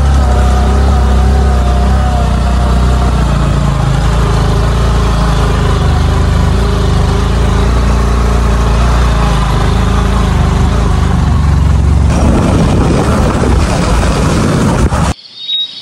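Motorcycle engine running steadily while riding along a gravel track, with a heavy low rumble underneath. Near the end the engine tone fades into a rougher rumble, and the sound cuts off abruptly just before the end.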